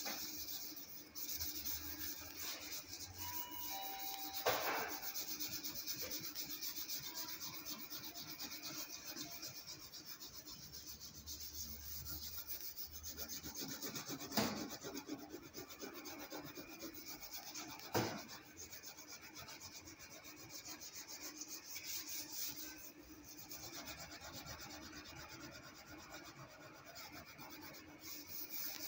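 Greasy oven door being scrubbed by hand, a steady rubbing, rasping scrape of rapid strokes. It is broken by three sharp knocks.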